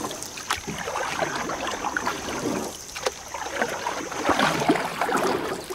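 Water splashing and gurgling in irregular splashes, like water lapping around a small boat.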